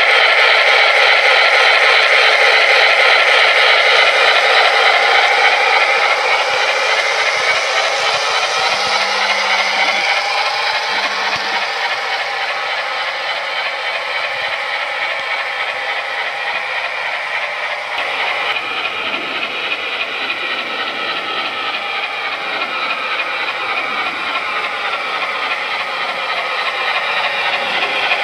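O gauge three-rail model freight train rolling along its track, the metal wheels and cars clattering and rattling on the rails. Loudest at first, it fades somewhat as the cars go by and swells again near the end as the locomotive comes round.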